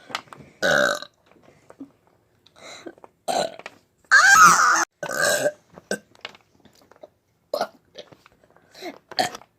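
A person burping several times in a row: short belches, with one long, loud burp about four seconds in.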